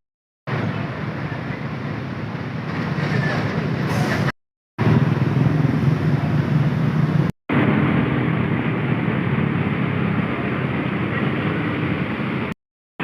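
Diesel bus engine running close by, a steady low hum with general terminal noise. It is cut into several short stretches by brief drops to silence.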